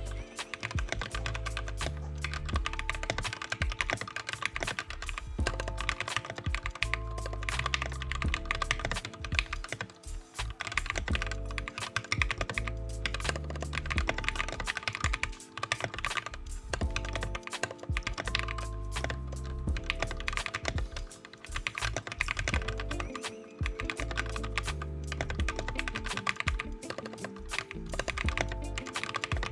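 Rapid, continuous typing on a custom plateless mechanical keyboard (Discipline 65 kit) with lubed Gateron Yellow KS-3 linear switches, the keystrokes falling in quick irregular runs with a few short pauses. Background music with a steady bass line plays under it.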